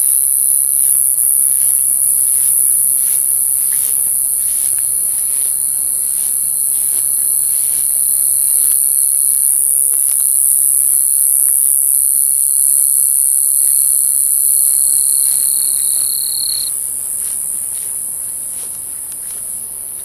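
A loud, steady, high-pitched chorus of crickets and other night insects, with a lower continuous insect trill that stops about three-quarters of the way through.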